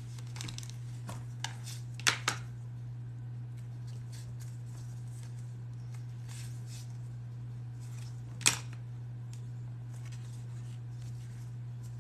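Light clicks and taps from handling small rivet hardware and leather by hand, over a steady low hum. Two sharp clicks come close together about two seconds in, and a single sharp click comes later.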